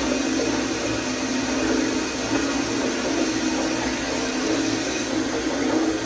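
Acorn stainless steel toilet flushing on a flushometer valve: a steady, loud rush of water swirling through the metal bowl and down the drain.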